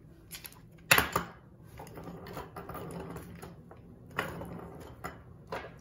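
Handling noise from a taped plastic-straw model car with binder-clip wheel stops: a sharp knock about a second in, then crackly rustling of tape and plastic with a few more clicks.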